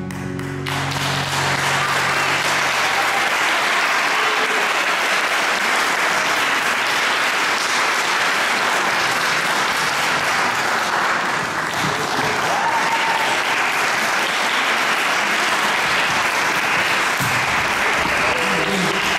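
Audience applause, steady and dense, as a piece of music ends; the last notes of the music die away in the first second.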